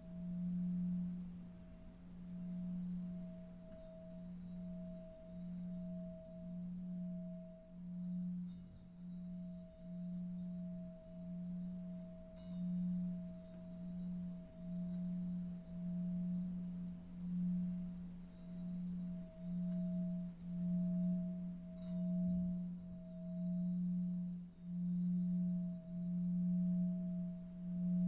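Sustained low meditation drone, one steady hum-like tone with a fainter higher overtone, swelling and fading in a slow pulse about once a second.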